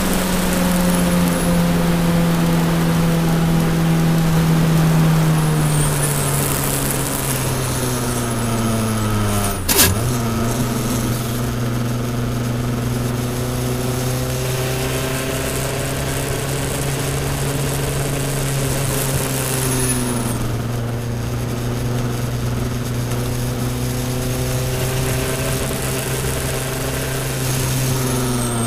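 Cabin sound of a Toyota Celica All-Trac's turbocharged 2.0-litre four-cylinder at speed on a wet track. The revs fall steadily for about ten seconds, then comes a sharp clunk and the pitch steps back up a little. The engine holds a steady lower note for most of the rest and rises again near the end, over a constant hiss of tyres and spray.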